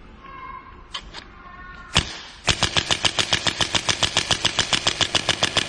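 Electric chiropractic adjusting gun firing: a single sharp strike about two seconds in, then a fast, even run of sharp impulse strikes at about seven a second. Faint short electronic tones and a couple of clicks come before it.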